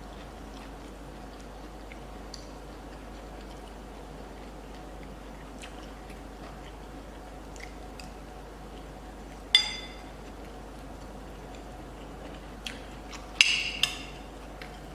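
Quiet eating with faint mouth clicks, broken by a sharp ringing clink of a utensil against a dish about halfway through and a quick cluster of louder clinks near the end.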